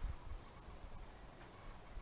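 Faint low thumps and rumble of a hand-held camera being moved, over a quiet room hiss.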